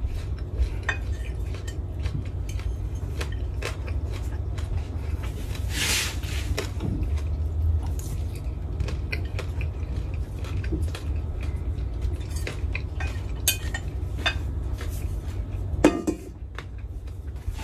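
Metal fork clinking and scraping against a plate while eating, in many short sharp clicks, over a steady low hum.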